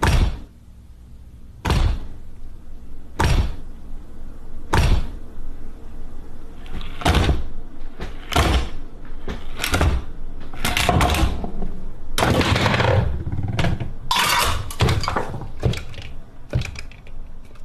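A chain-reaction contraption built from household and kitchen objects running: sharp knocks and clatters as pieces tip, drop and strike one another. It starts with four single knocks about a second and a half apart, then from about six seconds in the hits come quicker, with patches of rattling clatter.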